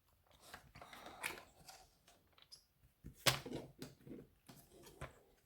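Card stock and crafting tools being handled on a tabletop: light paper rustles and small taps, with one sharp click a little past three seconds in.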